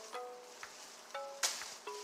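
Background music: a light melody of a few plucked notes that ring briefly and fade, with one sharp hit about one and a half seconds in.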